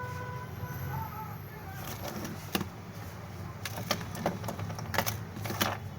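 A series of sharp clicks and taps, irregular and a few at a time, from about two seconds in, over a steady low hum.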